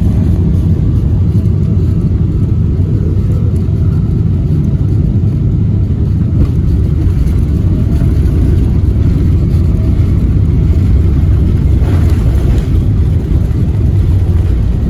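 Airliner's landing roll heard from inside the cabin: a loud, steady low rumble of the jet engines and the wheels on the runway, with the spoilers raised.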